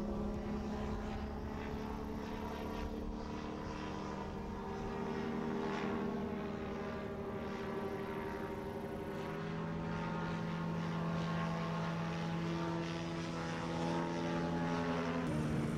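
Rotax 582 two-stroke engine and propeller of a light ultralight-class aircraft droning steadily as it flies overhead. The note shifts lower partway through and changes abruptly near the end.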